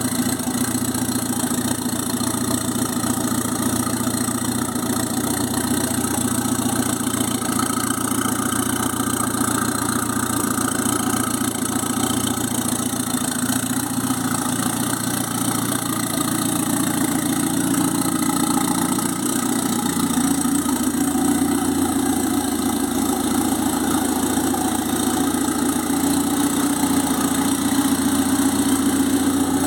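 Turbocharged Fiat 147 engine idling steadily.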